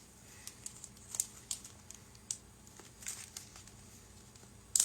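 Small plastic parts bag crinkling as it is handled, in scattered short crackles with a louder cluster near the end.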